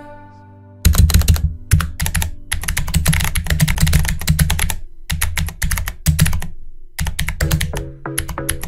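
Typing on a computer keyboard: quick runs of keystroke clicks with short pauses between words, starting about a second in.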